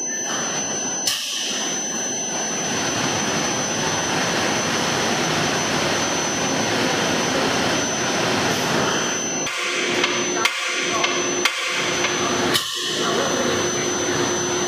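Seasoning-powder bag-filling packing machine running as it fills a large sack, a steady dense mechanical noise. A sharp knock sounds about a second in, and four or five more come in quick succession between about nine and thirteen seconds in.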